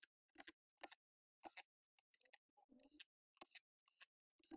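Small faint clicks, a dozen or so at an uneven pace, from a screwdriver and small screws being handled while the bottom-panel screws of a laptop are put back in.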